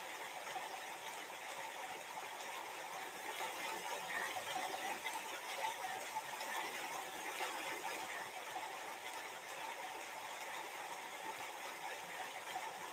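Faint, steady background noise with no speech: the room tone of a quiet living room.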